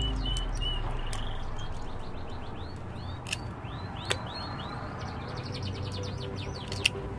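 Pliers snapping off the tips of freshwater field snail (tutut) shells: three sharp cracks, two close together near the middle and one near the end. A bird chirps over and over in quick down-slurred notes throughout.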